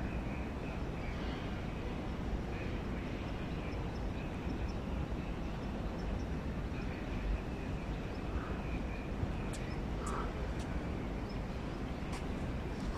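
Outdoor background noise: a steady low rumble with faint, broken chirping, and a few light clicks in the last few seconds.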